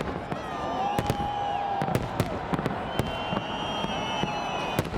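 Fireworks salute bursting overhead: a rapid, irregular string of sharp cracks and bangs, several a second, with the watching crowd's voices and a few long held calls underneath.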